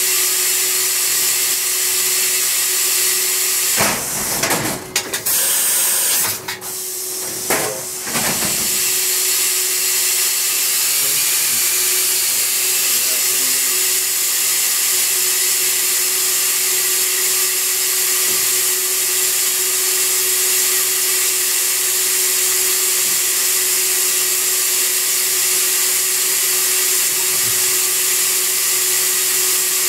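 Mori Seiki SH-503 horizontal machining center running with a steady, loud hiss and a hum under it. About four seconds in, the automatic tool changer swaps the tool in the spindle, a few seconds of sharp clunks with the hiss cutting out and back.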